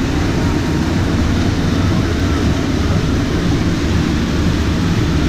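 A boat's engines running steadily under way, mixed with rushing wake water and wind on the microphone. It is a loud, even rumble with no break.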